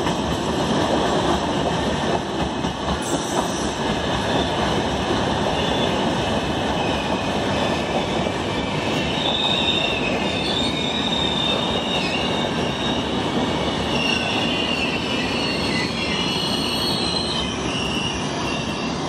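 LHB passenger coaches rolling past close by: a steady rumble and hiss of steel wheels on the rails. From about halfway through, a high-pitched wheel squeal comes and goes for several seconds.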